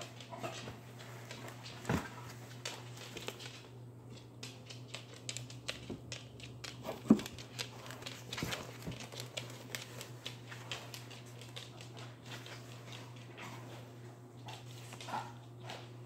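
Cardboard cat-food box rustling, scraping and knocking as a kitten shifts about inside it, with one sharp knock about seven seconds in. A steady low hum runs underneath.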